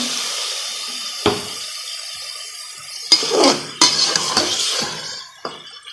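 Water poured into a pressure cooker pan of bitter gourd in masala, splashing steadily and fading away over about three seconds. Then, from about three seconds in, a slotted metal spoon stirring and scraping against the pot, with sharp clinks, stopping near the end.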